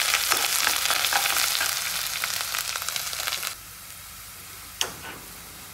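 Onions, cumin and ginger-garlic paste sizzling in hot oil in a kadhai for a tadka, with a spoon stirring and clicking against the pan. About three and a half seconds in the sizzle drops abruptly to a faint hiss, and a single sharp knock comes near the end.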